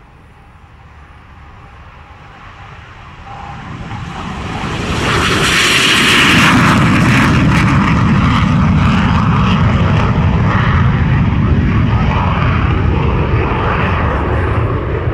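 BAE Hawk 100's Adour Mk 871 turbofan engine at high power as the jet takes off and flies low past. The jet roar builds over the first five seconds, then stays loud to the end.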